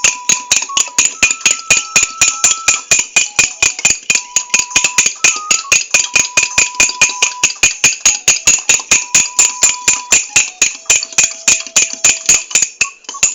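A utensil beating egg batter in a container, clinking against its side in a fast, steady rhythm of about five strokes a second.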